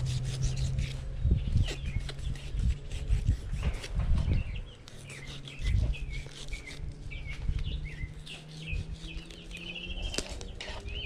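Small birds chirping over and over in quick, high notes, over the low knocks and rubbing of a knife working through an iguana's leg joint on a plastic cutting board. A steady low hum runs underneath and fades out near the end.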